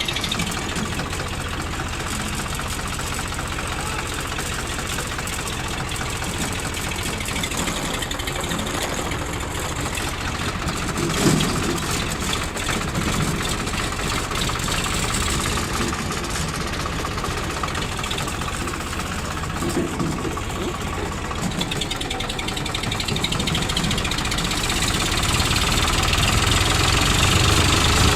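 Engine running steadily, growing louder over the last few seconds.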